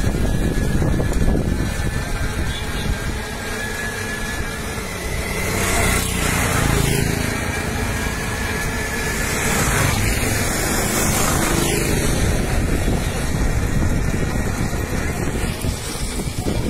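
Road traffic heard from a moving vehicle: engines and tyres giving a continuous low rumble, with louder hissing swells about six and ten seconds in as vehicles pass.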